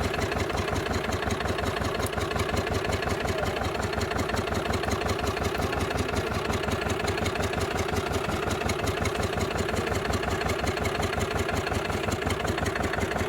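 Engine running steadily at constant speed, with a fast, even beat.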